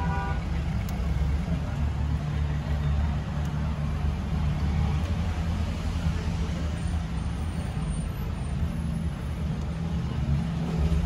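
Car engine and road noise heard from inside the cabin while driving: a steady low rumble. A short tone sounds right at the start.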